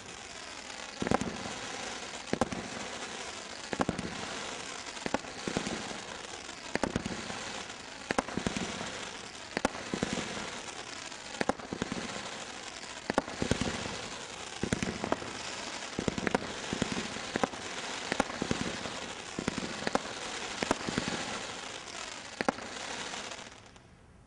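Brothers Pyrotechnics 'Crazy Crown' 16-shot combination Roman candle firing: sharp shots about once a second or so over continuous crackling from the stars, dying away shortly before the end.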